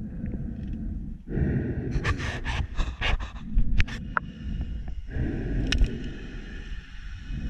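A spearfishing diver breathing hard at the surface, with a run of quick, sharp gasping puffs about two to three and a half seconds in, over a low rumble of water noise.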